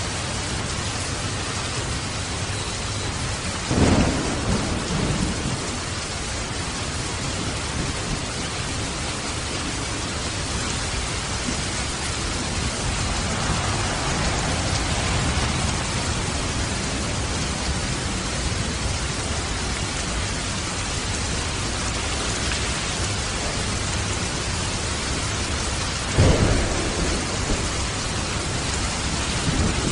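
Steady hiss of rain and falling water, with two short low rumbles, one about four seconds in and one near the end.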